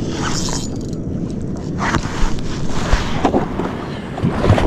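Spinning reel being cranked against a hooked fish, creaking under the load, with wind buffeting the microphone. From about halfway there are irregular knocks and splashes as the bonito is brought up to the surface beside the kayak.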